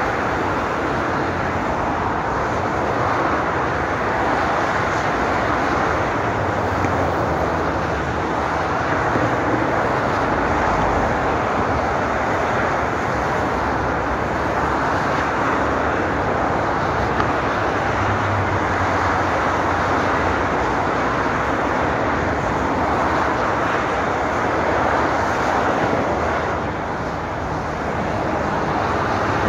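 Continuous motorway traffic: an unbroken rush of tyre and engine noise from cars, vans and lorries passing at speed in both directions, swelling and easing as vehicles go by, with a brief lull near the end.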